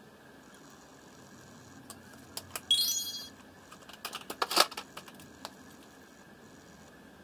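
Makeup tools being handled: a few clicks, a brief rising squeak just under three seconds in, then a short run of clicks and clatter, loudest about four and a half seconds in, as a metal eyelash curler is picked up.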